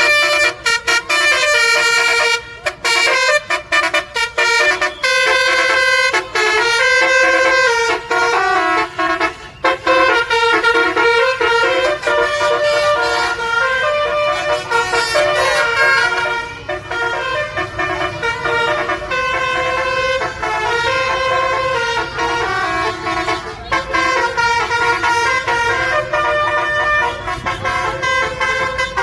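Bus telolet 'basuri' multi-tone horn playing a melody, note after note in quick steps, several tones sounding together, with a few brief breaks between phrases.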